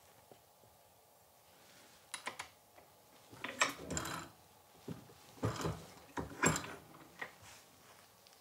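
A reloading press being worked to full-length size fired brass .300 PRC rifle cases. It sounds as short clusters of metallic clicks and knocks, starting about two seconds in.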